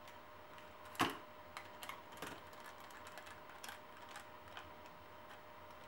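Scattered light clicks and taps, with a sharper knock about a second in and another a little after two seconds, from small tools and plastic and metal parts being handled while fastening a chassis guard to an RC truck. A faint steady tone hums underneath.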